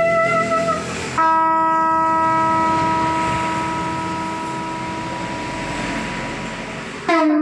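Amplified plucked string instrument. A short note sags slightly in pitch. Then, about a second in, one note is plucked and left to ring for about six seconds, slowly fading. New notes with a wavering pitch start near the end.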